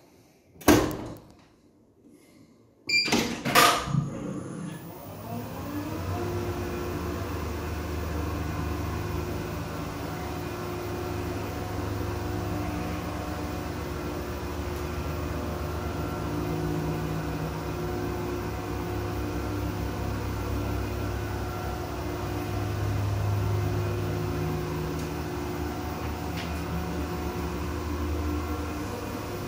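Aesy Liften platform lift's drive running steadily as the cabin travels between floors, a low even hum with a few held tones. A few loud knocks come in the first few seconds, before the drive starts.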